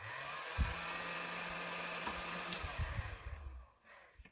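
Handheld heat gun blowing hot air, its fan motor spinning up at the start and then running with a steady hum under an airy rush. It is switched off about three and a half seconds in and its noise dies away. A single thump comes about half a second in.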